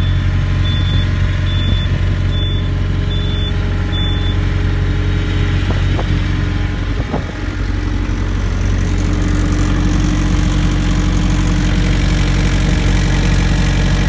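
New Holland skid steer's diesel engine idling steadily. A high warning beep sounds about every second for the first few seconds, then stops. A couple of knocks come a little past the middle.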